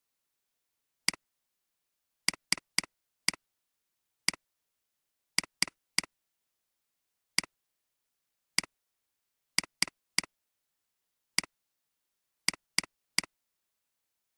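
Computer mouse clicks, single clicks and quick double clicks at irregular intervals, about eighteen in all, with total silence between them.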